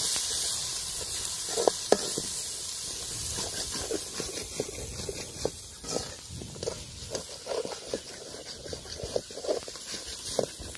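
Onion-tomato masala frying in hot oil in an aluminium pot with a steady sizzle, while a steel ladle stirs and scrapes it. There are repeated light knocks of the ladle on the pot, two sharp ones close together about two seconds in.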